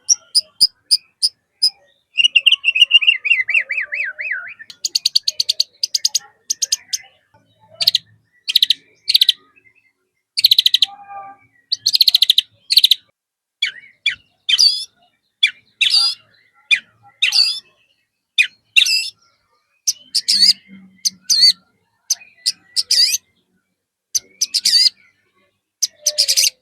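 White-rumped shama singing loudly, a varied song stuffed with mimicked phrases: fast rattling trills, a falling warble about two seconds in, and sharp whistled notes, with short pauses between phrases.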